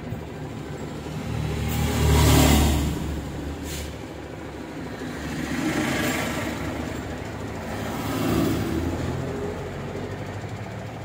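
Motor traffic going by: three swells of engine rumble and road noise that rise and fade, the loudest about two seconds in, with a short click in between.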